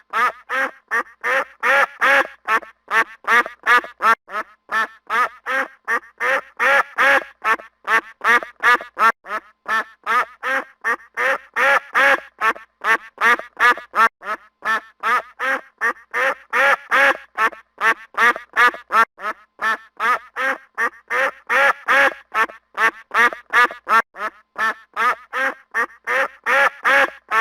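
Goose honking: a rapid, unbroken run of short, harsh honks, several a second.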